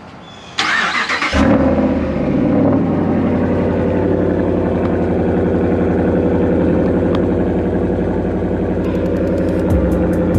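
A vehicle engine starts with a short burst of noise, catches a little over a second in and settles into a steady idle.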